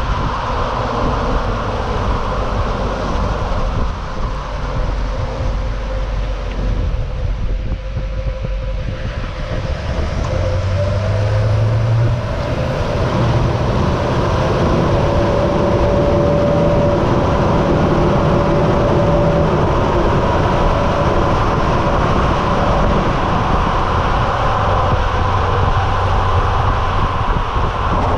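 Duramax LMM 6.6-litre turbo-diesel V8 of a 2008 Chevrolet Silverado 3500HD running through its stock exhaust and muffler, a steady low rumble heard close to the exhaust with road and wind noise, growing a little louder about ten seconds in.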